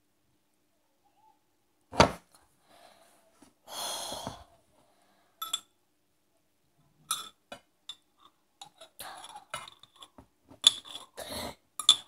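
A metal spoon clinking and scraping in a jar of mustard, as scattered small clicks through the second half. A sharp knock about two seconds in is the loudest sound, and a short rustle comes around four seconds in.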